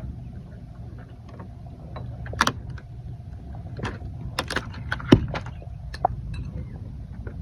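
Irregular light clicks and knocks of objects being handled and moved about, over a steady low hum, with a sharper knock about two and a half seconds in and another about five seconds in.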